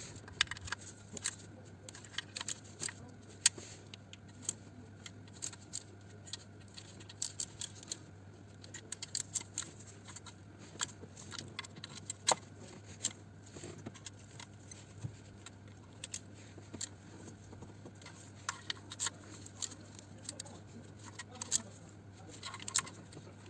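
Ratchet wrench clicking in short, irregular runs as the small oil sump bolts are tightened one after another.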